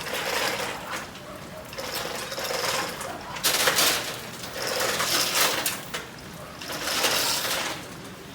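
Metal clinking and rattling in about five short bursts, from heavy metal parts being shifted and worked by hand.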